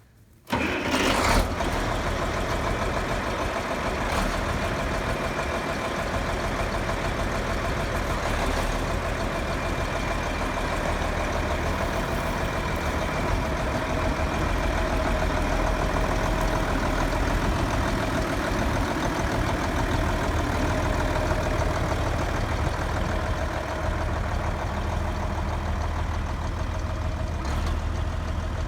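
Old farm tractor engine starting up after long storage, catching suddenly about half a second in with a brief louder burst, then running steadily.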